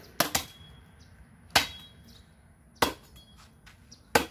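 Machete blows chopping into a wooden pole cut for firewood: five sharp strikes at uneven intervals, the first two close together.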